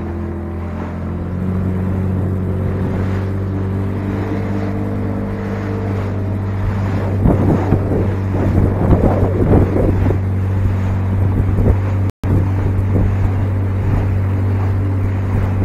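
Small motorboat's engine running steadily at speed, with the hull slapping and spray splashing through the water for a few seconds in the middle.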